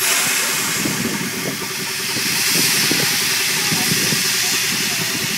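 LNER A4 steam locomotive No. 4464 Bittern venting steam from the cylinder drain cocks at its front end: a loud, steady hiss that starts abruptly, with a low uneven rumble under it.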